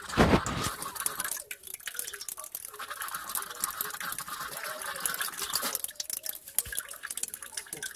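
Flush water pouring from a disconnected heater hose into an enamel basin half full of rusty water, splashing and dripping steadily as the van's cooling system is flushed through with water. A brief low thump right at the start.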